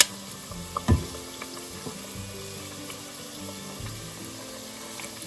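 Hush puppy batter deep-frying in hot oil, a steady sizzle, with a sharp click at the start and a thud about a second in.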